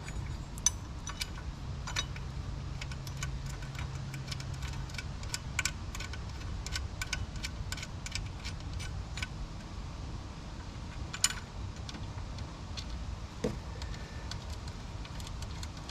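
Light metallic clicks and clinks of the alternator's top bracket and its bolts being handled and fitted by hand, with a run of fairly regular ticks in the middle and one sharper knock later on.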